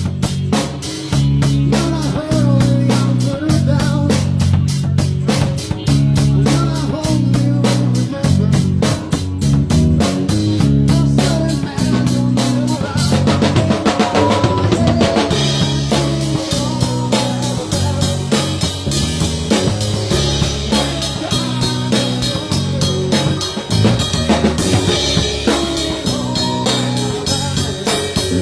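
Live rock band playing with a steady beat on drum kit, snare rimshots and bass drum, over a driving bass line, with no singing.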